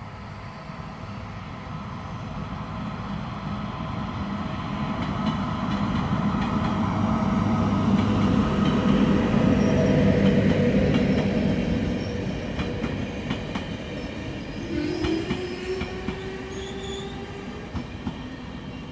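Locomotive-hauled passenger train approaching and passing close by. A steady hum with several held tones swells to its loudest about ten seconds in as the locomotive goes by. The coaches then roll past with clicks from the wheels and a brief wheel squeal about fifteen seconds in.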